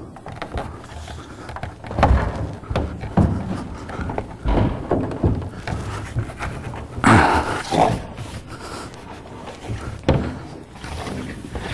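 Wooden sauna wall panels being handled and fitted, with irregular knocks, thumps and scraping, and a louder rustling scrape about seven seconds in.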